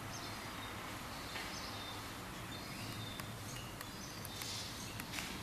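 Steady outdoor street background noise with faint, short bird chirps now and then and a few light clicks.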